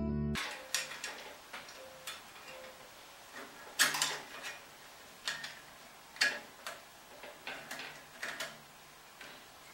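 Irregular small metallic clicks and taps, about a dozen, the sharpest about 4, 6 and 8 seconds in, from hands and a tool adjusting the blade guides beneath the table of a 14-inch wood bandsaw.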